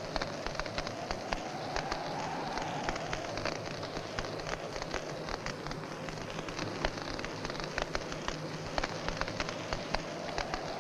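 Dense, steady crackling over a hiss and a faint low hum, with a soft whooshing swell about two seconds in and again near the end.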